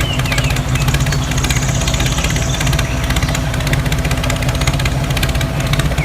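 Engine running steadily at idle: a fast, even pulsing over a low hum.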